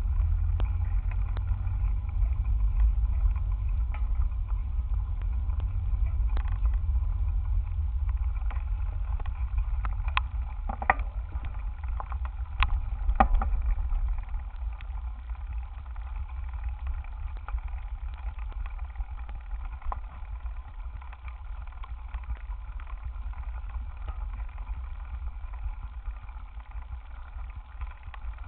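Steady low rumble of wind buffeting and ride vibration on a handlebar-mounted camera as the bicycle rolls over rough dirt and grass, with a few sharp knocks and rattles from bumps a little before halfway; the rumble eases somewhat after that.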